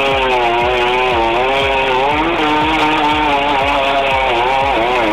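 Chainsaw running at high speed, its pitch wavering up and down as it is worked, over a regular low thumping about three times a second.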